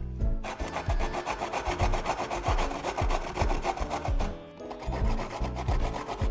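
Daikon radish being grated on a grater: rapid, even rasping strokes with a short break about four and a half seconds in, over background music.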